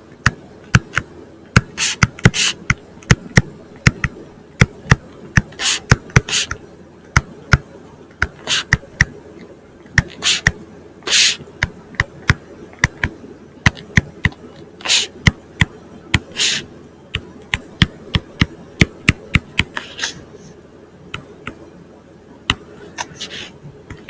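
Stylus pen tapping and scratching on a tablet screen during handwriting: a quick, irregular run of sharp clicks with short scrapes, over a faint steady hum.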